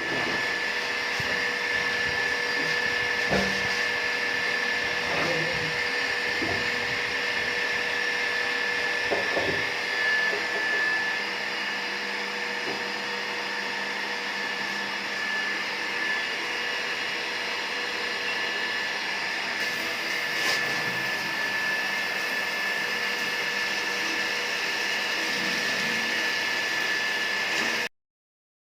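Water running through a bathroom sediment filter and its pipes: a steady hiss with a thin high whistle, cutting off abruptly near the end.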